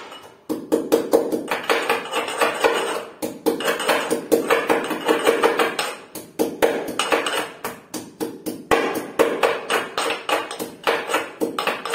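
Steel mortar and pestle crushing ginger and garlic: rapid metallic pounding, several strikes a second in runs with brief pauses, each strike leaving the mortar ringing.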